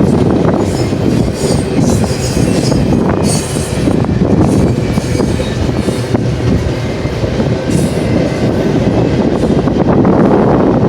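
BNSF double-stack container train rolling past, its wheels rumbling and clattering on the rails, with brief high squeals about three seconds in and again near the end. Strong wind buffets the microphone.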